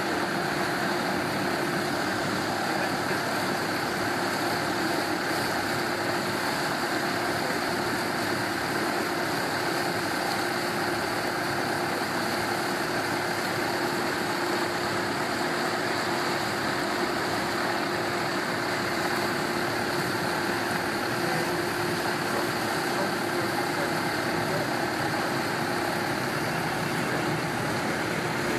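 Water taxi's engine running steadily: a constant drone with a steady hum and a hiss over it.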